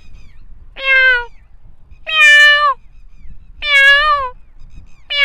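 A man imitating a cat with his voice: a run of drawn-out meows, each about half a second long and dropping in pitch at the end, three in a row with a fourth starting at the very end.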